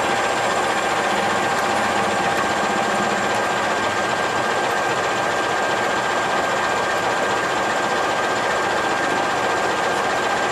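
KAI CC 206 diesel-electric locomotive idling close by: a steady engine run with a constant whine over it.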